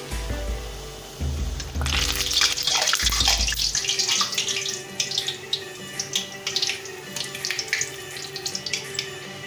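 Rolled maida pastry deep-frying in hot oil in a kadhai. A loud sizzling hiss with dense crackling starts about two seconds in and eases after a couple of seconds into scattered crackling pops.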